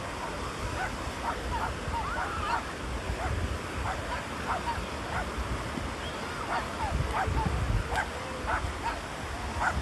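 A small dog yapping in short, repeated yips, about one or two a second, over the steady low rumble of surf breaking on the beach.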